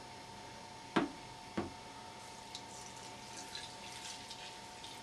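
Yeast starter poured from a glass flask into a fermenting bucket of chopped rhubarb: two knocks about a second in, then faint splashing and dripping of liquid onto the fruit.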